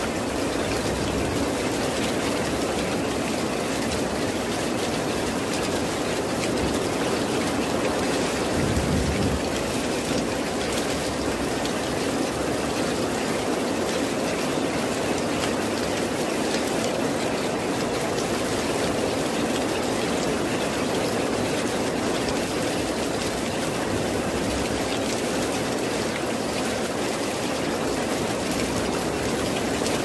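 Heavy rain falling steadily on dense foliage, an even, unbroken hiss, with a brief low rumble about nine seconds in.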